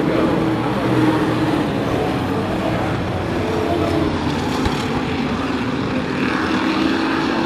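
A pack of race sport trucks running at speed on the track, their engines blending into a steady, continuous drone.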